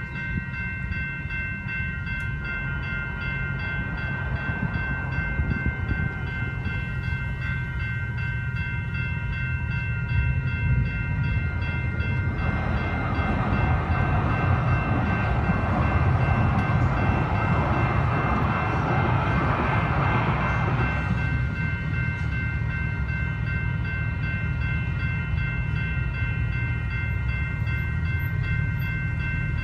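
Railway crossing electronic bells ringing steadily over a low rumble, while a Siemens SD160 light rail train passes through the crossing. The train's wheel-and-rail rushing noise rises in about twelve seconds in and stops about nine seconds later.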